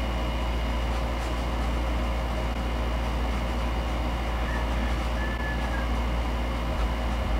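Room air conditioner running: a steady low hum with faint steady tones above it.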